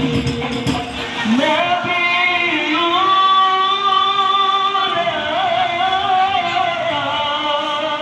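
Live devotional-style music: about a second of frame-drum beats, then a solo singer holding long, wavering melismatic notes with no drums underneath.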